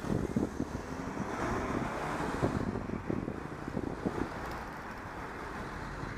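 Wind buffeting the microphone in irregular low gusts over a steady hiss of road and traffic noise from cars on a city street.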